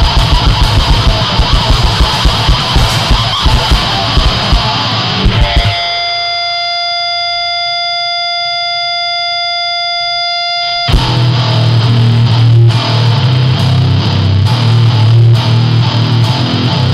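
Fast, distorted two-piece powerviolence: distorted guitar over rapid drumming. About six seconds in, everything stops but one held guitar note ringing steadily for about five seconds, then the full band comes back in with heavy bass.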